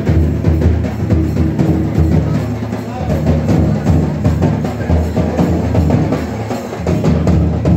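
Loud drum-led music with a steady beat, the drums carrying the rhythm for a group dance.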